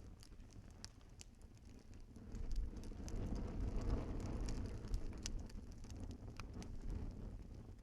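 Wood fire in a fireplace crackling, with scattered sharp pops. A low rumble swells about two seconds in and eases off toward the end.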